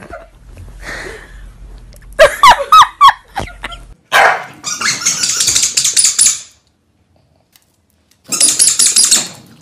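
Two corgis snarling and growling at each other in a scuffle, in two rough bursts with a short silence between. Before that come a few short, wavering high-pitched cries.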